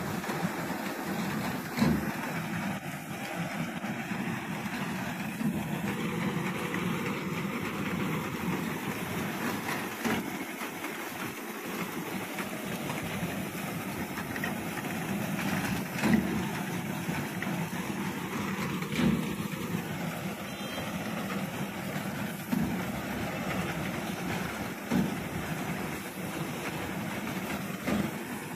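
Reaper binder running steadily, engine and cutting gear making a dense, even mechanical noise, with a few sharp knocks scattered through it.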